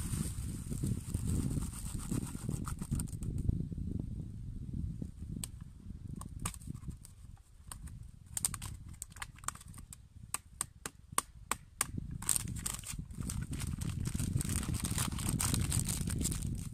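A plastic food packet being handled and opened, crinkling and tearing, with a run of sharp clicks and crackles about halfway through. Wind rumbles on the microphone.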